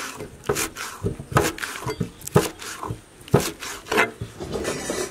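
Knife chopping spring onions on a cutting board: a run of uneven sharp knocks, about two or three a second.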